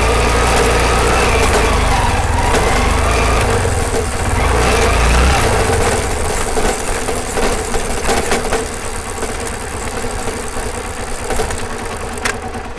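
Hero Honda Karizma R motorcycle riding, heard close to the rear chain: engine and chain running with scattered rattling knocks from the chain guard. The rider traces the noise to the chain guard panels not being seated properly. A heavy deep rumble eases off about five seconds in.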